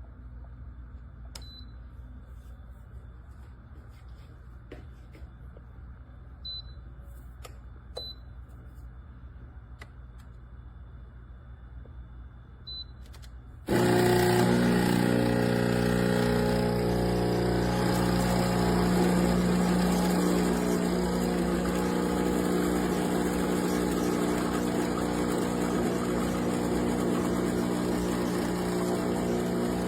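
A few small clicks and short electronic beeps over a low hum, then about fourteen seconds in an espresso machine's pump starts suddenly and runs with a steady loud buzzing drone.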